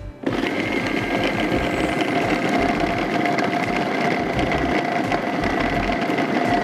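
Electric food processor switching on about a quarter second in and running steadily with a constant whine, its blade mincing raw chicken with coriander and spring onion into a meatball mixture.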